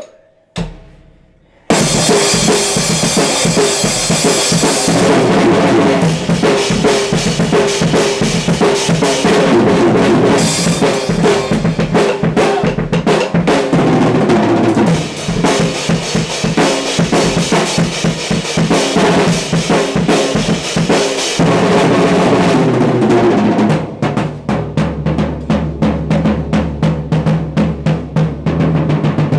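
Drum kit played in a fast, hard-hitting solo: the drumming comes in about two seconds in and keeps going, and near the end turns into a fast, even run of strokes.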